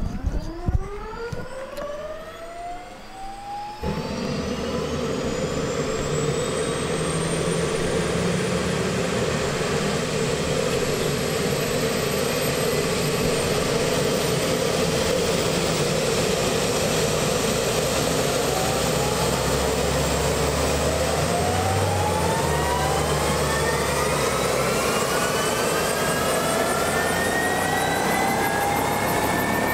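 AgustaWestland AW109 twin-turbine helicopter starting up: a turbine starter whine rises over the first few seconds, and about four seconds in the engine lights off and settles into a steady, louder turbine rush. From about eighteen seconds in, further whines climb in pitch as the engines spool up and the main rotor begins turning.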